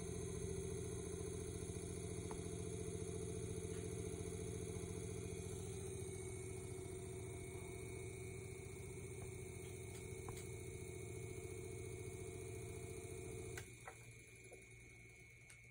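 Edison Model 1893 iron-clad DC battery fan running with a steady motor hum and blade whir. Near the end a click sounds and the running sound drops to a fainter whir.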